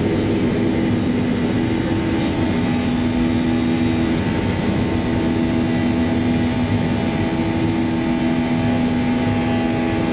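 Cabin noise of a Boeing 737-800 at takeoff thrust as it lifts off and climbs: its CFM56-7B jet engines running steadily, with several steady hum tones over the rush of air.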